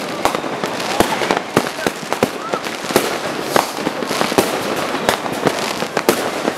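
New Year's fireworks and firecrackers going off all over a city: a dense, irregular string of sharp bangs and cracks, some close and loud, many fainter and far off, over a steady din of more distant explosions.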